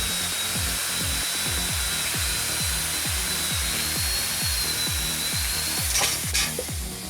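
A power saw cutting wood, a steady high hiss with a thin whine that stops about six seconds in after a couple of sharp clicks, over background music with a steady, deep thumping beat.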